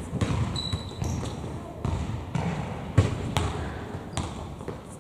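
Basketball bouncing on a sports-hall floor, a string of irregular thuds about a second apart, with a short high squeak about half a second in and a murmur of voices behind.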